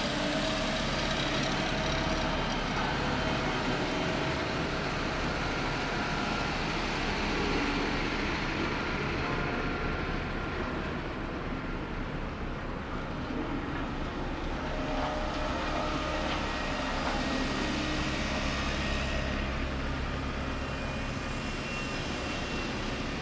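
Heavy diesel construction machinery running steadily: a low engine drone under a broad mechanical noise, with no clear revs or stops.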